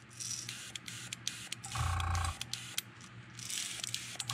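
Airbrush spitting short hisses of air and paint at low pressure, about 8 to 10 psi, to throw large splatter droplets, twice. Sharp ticks run between them, and a short hum sounds about two seconds in.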